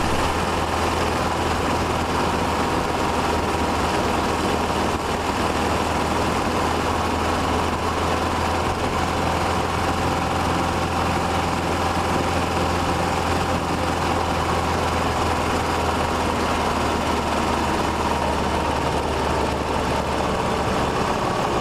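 2011 Kawasaki KLR650's single-cylinder engine running steadily, picked up by a microphone mounted inside the bike's left fairing.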